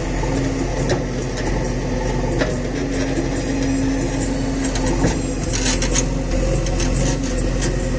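JCB 3DX backhoe loader's diesel engine running steadily under load while the backhoe bucket digs into loose soil, with a few knocks from the bucket and arm.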